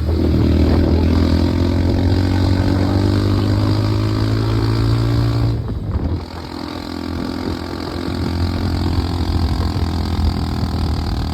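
A vehicle engine running steadily at close range, its pitch easing down slightly. About six seconds in it drops off briefly, then picks up again a little quieter.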